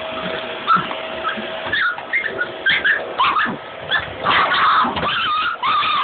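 Dogs yipping and whining in short, high, rapid calls that come thicker and louder in the second half, the agitated protest of dogs that hate the vacuum cleaner.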